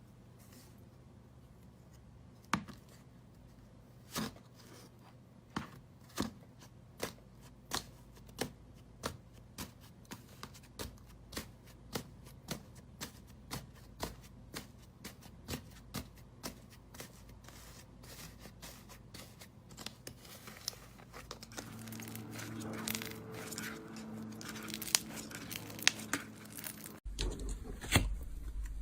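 Slime being squeezed and poked by hand, making sharp sticky clicks and pops about twice a second, turning into a denser crackle near the end before a sudden cut to a different clip.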